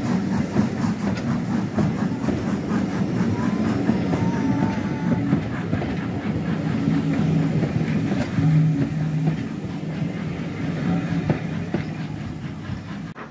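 Passenger coaches of a steam-hauled train passing close by at speed, wheels clattering over rail joints with a heavy rumble. The noise dies away as the last coach goes by, then cuts off suddenly near the end.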